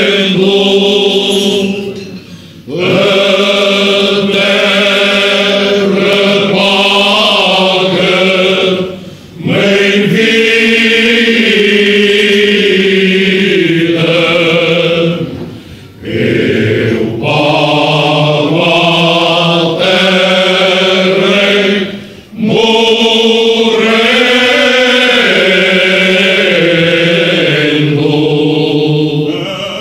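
Men's choir singing cante alentejano, the unaccompanied Portuguese folk part-song, in slow, long-held phrases. Short breaks between phrases come about every six to seven seconds.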